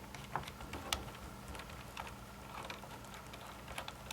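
Small screws being turned out of an airsoft V3 gearbox shell: faint, irregular clicks and ticks of screwdriver and metal parts.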